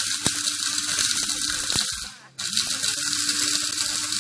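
Small Cookworks electric spice grinder running at high speed, whole cloves, star anise and grains of selim rattling against the blade as they are ground. It stops briefly about two seconds in, then starts again for a second pulse.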